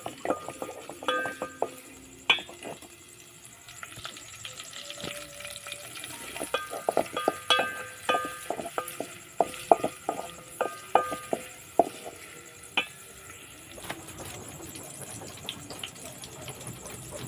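Metal spoon stirring in a metal cooking pot: repeated knocks and scrapes against the pot's side, each with a short metallic ring. The knocking comes in a brief flurry at the start and a longer, busier run in the middle, then settles.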